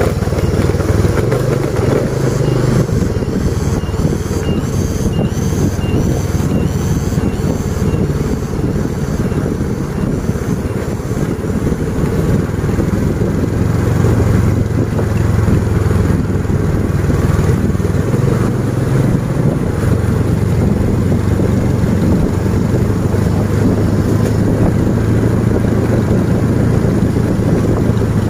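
Small motorcycles riding at a steady pace, their engines running evenly under road and wind noise. A faint high chirp repeats about twice a second for several seconds near the start.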